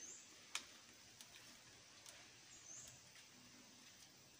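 Near silence: faint outdoor ambience with a few light clicks and two brief, faint high chirps.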